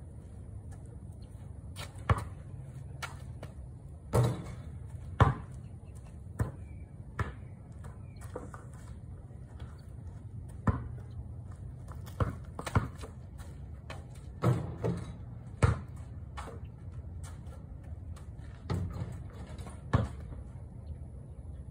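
Basketball bouncing on a paved driveway: about a dozen irregularly spaced thuds, a few of them loud, with gaps of up to several seconds between them.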